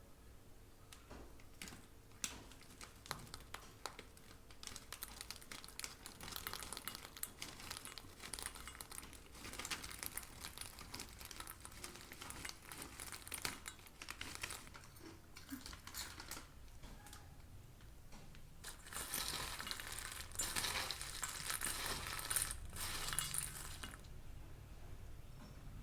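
Snacks and kitchenware being handled: crinkling with many small clicks and clinks, thickest for a few seconds near the end.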